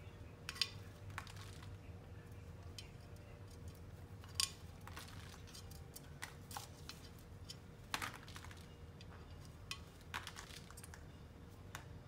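Quaker parrot bathing in its cage's water bowl: irregular short splashes and wing flutters in the water, about a dozen, the sharpest about half a second and about four and a half seconds in.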